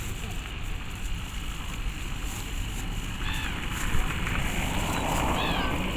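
A bird calling twice, short arching calls, over a steady low rumble of wind on the in-ear microphones; a brief rushing swell rises near the end.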